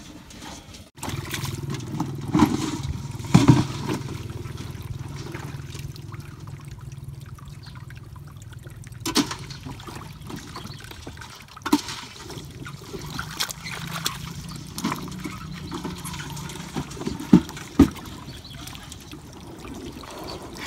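Shallow muddy ditch water trickling and sloshing, with a few short knocks and splashes.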